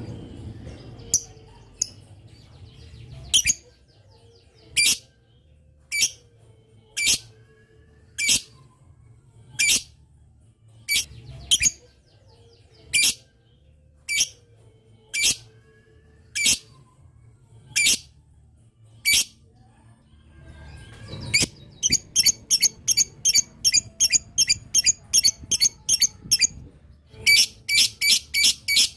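Lovebird calling: sharp, high single chirps about once a second, then, about three-quarters of the way through, a fast run of repeated notes, several a second. This run is the long 'ngetik' (typing) chatter.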